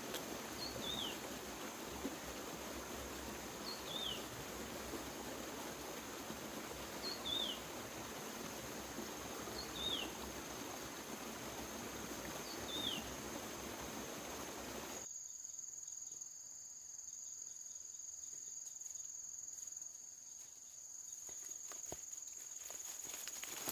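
Insects trilling steadily at a high pitch, with a short falling chirp repeated five times about every three seconds in the first half. About two-thirds of the way in, the background hiss drops away suddenly while the trilling goes on.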